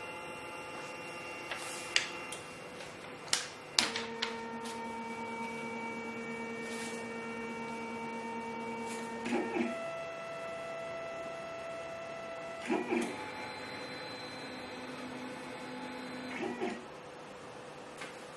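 FlashForge Creator Pro 3D printer's stepper motors whining as they drive the build platform and print head. The steady whine jumps to a new pitch three times, with a short clunk at each change, and stops a few seconds before the end. A few sharp clicks come in the first few seconds.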